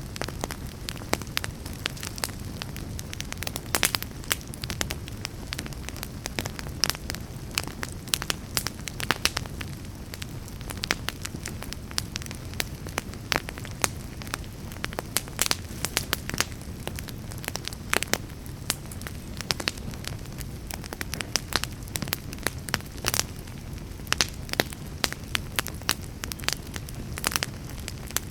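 Fire burning steadily with dense, irregular crackling and popping over a low rumble.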